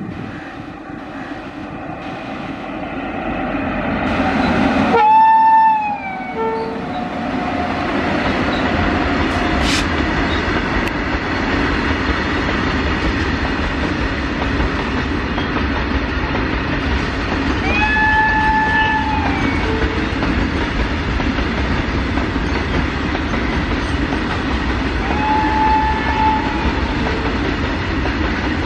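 An electric freight locomotive's horn sounds three times: a long, loud blast about five seconds in that drops in pitch as it ends, then two shorter blasts later. Loaded open freight wagons run past with a steady rumble and clickety-clack.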